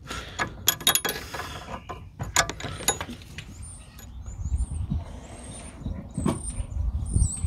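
Light metallic clicks and clinks of a spanner on the bleed nipple of an Audi TT Mk2's rear brake caliper as it is cracked open to bleed the brakes. They are most frequent in the first three seconds, then give way to quieter handling knocks.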